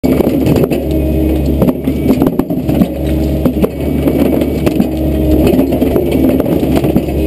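Excavator-mounted crusher bucket crushing concrete rubble: a steady low machine drone with repeated cracking and clatter of broken stone falling from the bucket.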